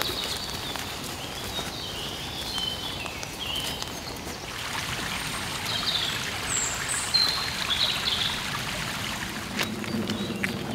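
A brook running steadily, with small birds chirping in short high calls over it. A low droning tone comes in near the end.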